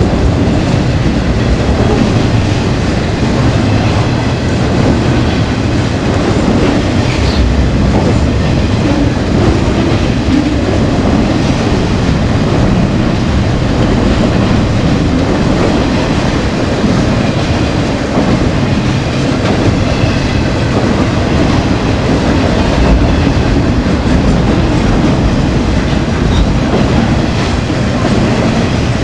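Cars of a CSX intermodal freight train rolling past on the adjacent track: a loud, steady rumble of steel wheels on the rails.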